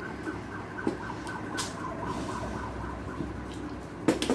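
A few sharp clinks about four seconds in as a small ceramic bowl is picked up from the table, over a faint steady high tone in the background.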